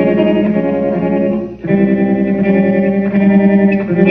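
Recorded music: a slow instrumental passage of plucked electric guitar with an effects sound and a bass line, with no singing. The held chords change twice.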